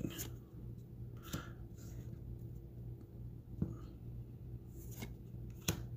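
Magic: The Gathering cards being slid and flipped in the hands: soft rubbing of card stock with a few light clicks, over a faint steady low hum.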